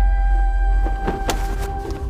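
Film score of an animated feature: held sustained notes over a heavy deep bass, with a few short sharp sound-effect hits around the middle.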